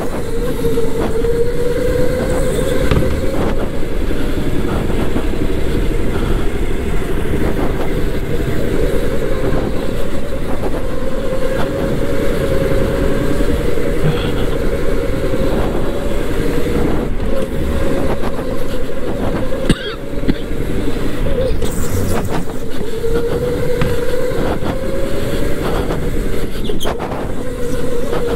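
Electric go-kart motor whining steadily over a heavy rumble of the kart on the track. The pitch drifts with speed, drops away about two-thirds of the way through, then comes back lower and climbs. Scattered short knocks sound throughout.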